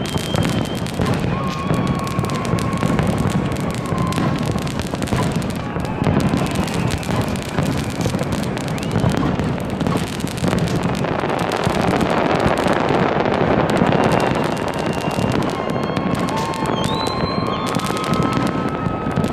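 Large fireworks display going off nonstop: a dense rumble of overlapping bursts and crackling, thickest about two-thirds of the way through. A few steady high tones hold for a couple of seconds at a time over it.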